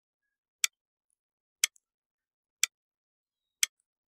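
A clock-ticking sound effect, one sharp tick each second, four ticks in all. It works as a countdown timer for answering a quiz question.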